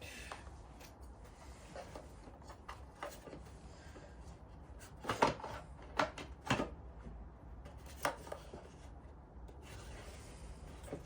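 Parts of a diesel heater being handled and fitted by hand: light rubbing and shuffling with a few sharp knocks and clatters, the loudest cluster about halfway through and one more knock a little later.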